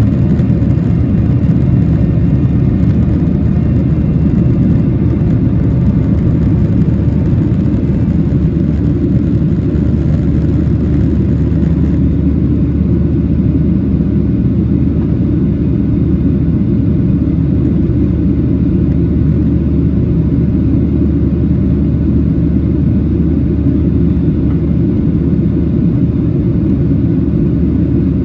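Boeing 737-800's CFM56-7B jet engines and rushing air heard from inside the passenger cabin during takeoff: a loud, steady low rumble, with the higher hiss dropping away about twelve seconds in.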